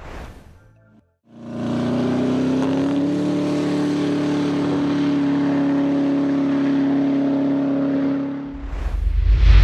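A car's engine and exhaust held at a steady pitch, starting about a second in and running for about seven seconds without rising or falling. It gives way near the end to a louder deep, low rumble.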